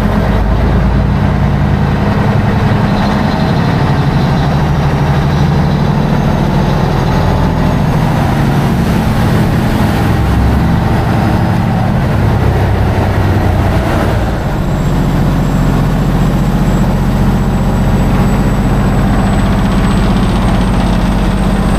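Canal water taxi's engine running loud and steady under way, with a rushing noise of water and wind. The engine note shifts and dips briefly about fourteen seconds in, then settles again.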